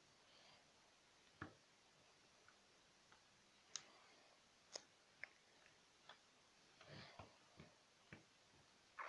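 Near silence with faint, irregular clicks and taps from a hand handling a Furby-style electronic plush toy, a few of them bunched together near the end.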